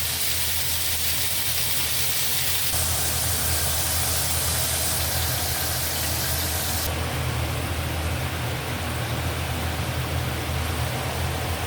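Food sizzling in a hot pan over a steady low hum; the hiss drops noticeably about seven seconds in.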